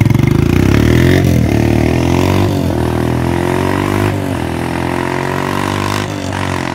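Kawasaki KLX140's single-cylinder four-stroke engine, stock exhaust with the baffle removed, accelerating away. It revs up and drops back about four times as it shifts up through the gears, growing fainter as it pulls away.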